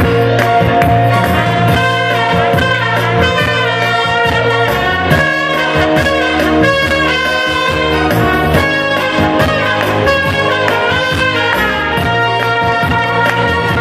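Brass music: trumpets playing a lively tune over a steady accompaniment with sustained low notes.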